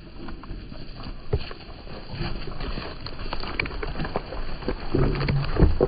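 Hooves of a flock of Zwartbles sheep trotting past over wet grass and leaf litter: many quick irregular thuds and rustles, loudest near the end as the animals pass right by.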